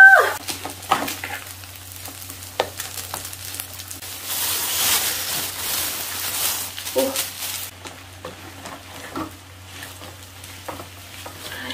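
Fried rice sizzling in an aluminium foil pan on a gas burner while a wooden spoon stirs it, with scattered clicks and scrapes of the spoon against the pan. A plastic bag crinkles for a few seconds in the middle as grated cheese is shaken out of it onto the rice.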